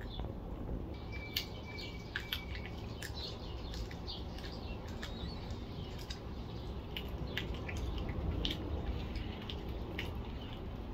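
Kittens chewing and licking raw chicken: a run of small, sharp, wet clicks and smacks at irregular intervals, over a steady low rumble.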